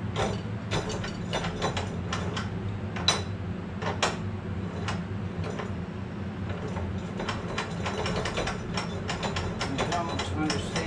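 Irregular metallic clicks and clunks as the parts of a new Evolution 14-inch metal-cutting chop saw are handled and worked by hand, over a steady low hum.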